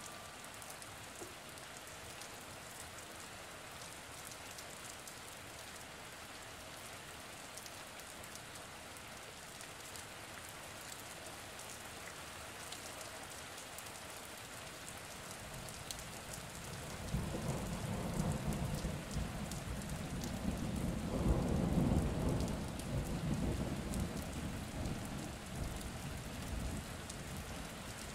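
Steady rain falling, with a long rolling rumble of thunder that builds a little past halfway, peaks, and fades out near the end.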